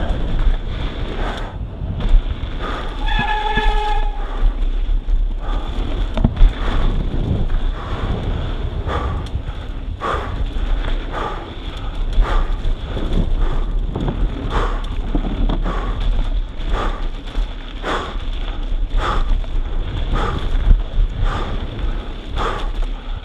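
Mountain bike descending a dirt trail: wind buffeting the microphone with steady rumble, tyres on dirt and frequent rattles and knocks from bumps. About three seconds in, a brief pitched tone sounds for about a second.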